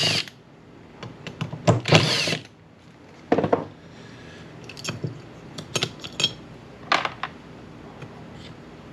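Irregular clicks, knocks and short scrapes of hand tools and small metal carburetor parts being worked loose on a bench, from one of a 1999 Honda Valkyrie's six carburetors coming off its rack. There is a longer scraping burst about two seconds in and another at about three and a half seconds.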